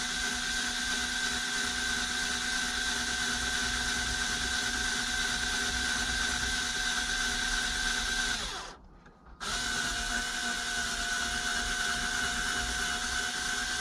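Small electric power driver running steadily at one speed, turning a screw that is slow to bite into hard plastic console trim. It stops about eight and a half seconds in for under a second, then runs again.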